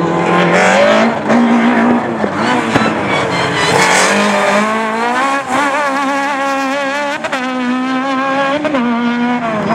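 Peugeot rally car's engine revving hard and falling back several times as the driver goes on and off the throttle through tight turns, with short dips in pitch between pulls.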